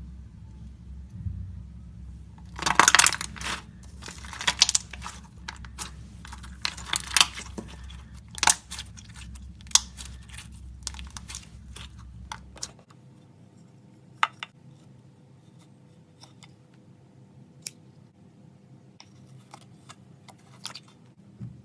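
Slime being squished and stretched by hand, with dense bursts of crackling, popping clicks for the first half and scattered single pops after that.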